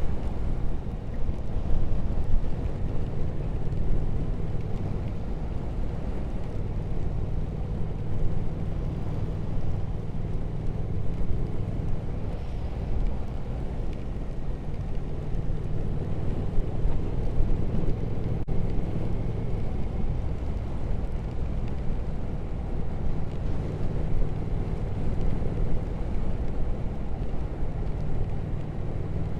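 Triumph Speed Twin 1200 parallel-twin engine running at a steady cruising pace under way, with only slight changes in pitch, over a constant rush of wind and road noise.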